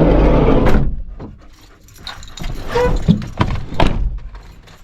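A dog panting and whimpering, with a loud rush of noise and low rumble in the first second and scattered bumps afterwards.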